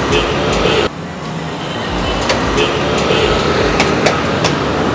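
Busy roadside food-stall din: a steady wash of traffic-like noise and background voices, with scattered sharp taps and clacks of cooking work at a parotta griddle. The background changes abruptly about a second in.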